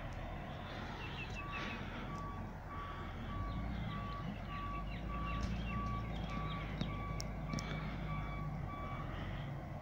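Recycling truck's reversing alarm beeping at a steady pace, a little under two beeps a second, starting about a second and a half in and stopping near the end, over the low rumble of the truck's engine running.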